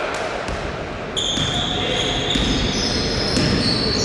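Basketball game play on a gym court: the ball bouncing in several sharp thuds, and from about a second in, high sneaker squeaks on the floor, over voices in the hall.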